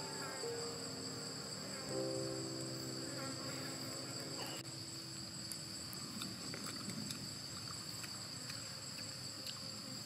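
Steady, high-pitched insect chorus under background music that stops about four and a half seconds in. After that, a few light clicks of chopsticks and cockle shells.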